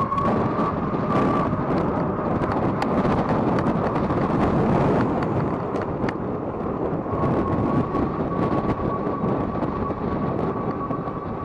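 Wind buffeting an action camera's microphone while riding an electric bike, with scattered clicks and rattles. A steady high whine from the bike's motor is heard at the start and again from about seven seconds in.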